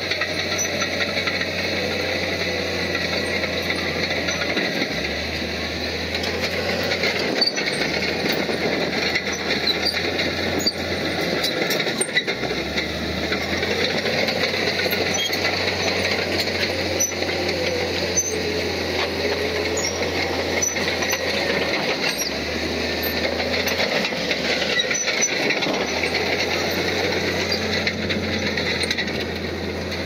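Heavy earthmoving machine's diesel engine running steadily, with scattered metallic clatter.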